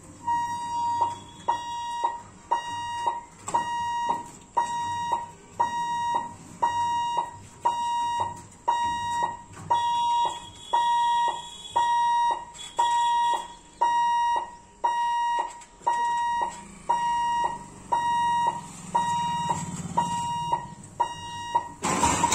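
Level-crossing warning buzzer beeping in a steady, even rhythm, about one high beep every 0.8 seconds, while the boom barriers are lowered ahead of a train. A short, loud noise near the end cuts across the beeping.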